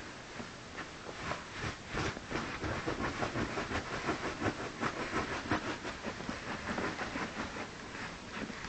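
A small dog digging and scratching at its fleece-lined pet bed: a fast, irregular run of scratchy rustling that starts about a second in and eases off near the end.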